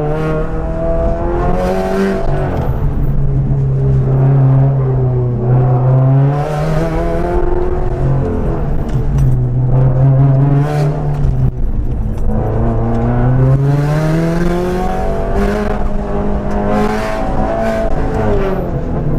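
2017 Subaru WRX STI's turbocharged 2.5-litre flat-four engine heard from inside the cabin on an autocross run. The revs climb and drop again and again as the car accelerates and slows between cones.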